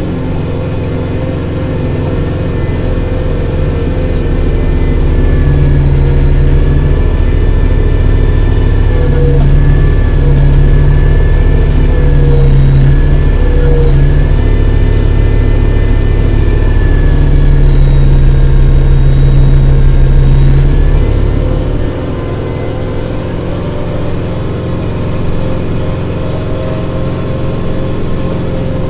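Kubota tractor's diesel engine running under load while its rear snowblower works, with a faint high whine over the engine note. The engine gets louder about four seconds in and eases back about three-quarters of the way through.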